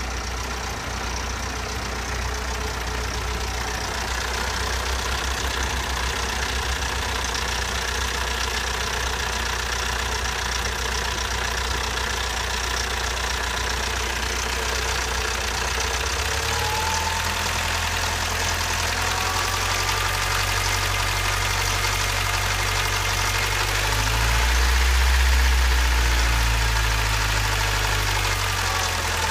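Toyota 22RE four-cylinder engine running with a valve clatter that sounds like a tractor, heard right after a timing chain replacement. About three-quarters of the way through, it gets briefly louder, then settles again.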